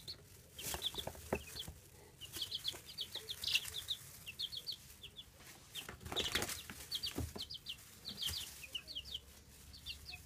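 Baby chicks peeping: short high peeps in quick runs of two to four, over and over, with a few brief rustling noises in between.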